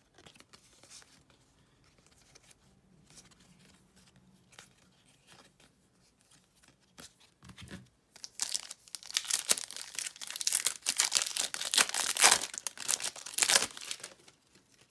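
Foil wrapper of a trading-card pack being torn open and crinkled. Faint rustling for the first half, then loud crinkling and tearing from about eight seconds in.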